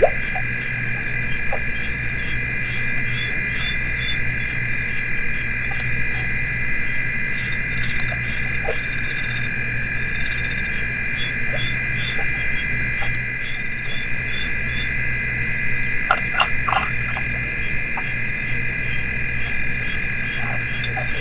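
Night chorus of frogs: a continuous high trilling with a quicker chirp repeating over it about twice a second. A steady low hum runs beneath, and a few soft clicks come about three-quarters of the way through.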